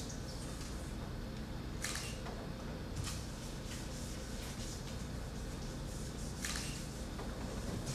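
Lump of soft coal scraped and rubbed against a wall in short, scratchy strokes, the strongest about two, three and six and a half seconds in, over a steady low hum.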